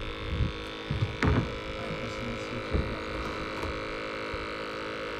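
A steady hum made of many even tones, with a few dull thumps in the first three seconds.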